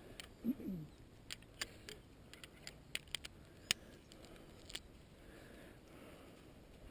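Faint sharp clicks and small rattles of paragliding harness carabiners and buckles being handled and clipped together, a dozen or so scattered single clicks. A short low vocal sound falling in pitch comes about half a second in.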